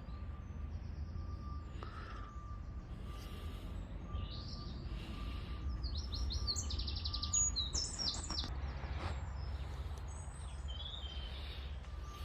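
A small songbird singing outdoors: several quick, high, twittering phrases of rapid repeated notes about four to nine seconds in, with fainter calls after. Under it runs a steady low background rumble.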